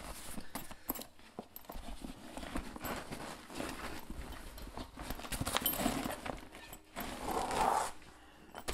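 Zipper rasping open around a padded drum carrying case, with fabric rustling and irregular light knocks as the steel tongue drum inside is handled and lifted out.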